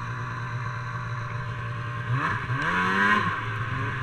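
Snowmobile engine running under way, the revs climbing and the sound growing louder about halfway through, then easing back near the end.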